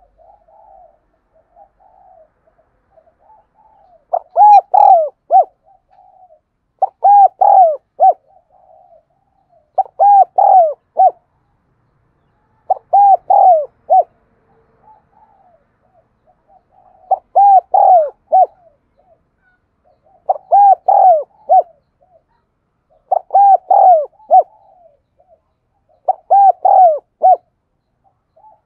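Spotted dove cooing: soft, quiet cooing for the first few seconds, then loud multi-note coo phrases repeated about every three seconds, with soft cooing between them.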